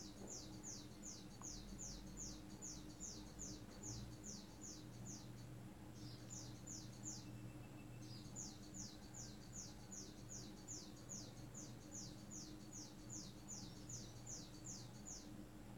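Faint, rapid high-pitched chirping, about three short chirps a second, each falling in pitch, with brief breaks about five seconds in and again near eight seconds, over a faint low hum.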